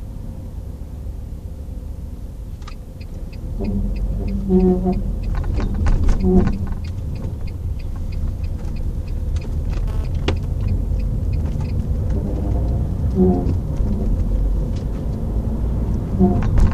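Inside a moving Renault Megane 1.9, low road rumble with a creak from the rear passenger-side corner, heard several times as the car moves. The garage found nothing wrong with the suspension, and the cause is unknown. A car seat adds a light rattle of quick ticks.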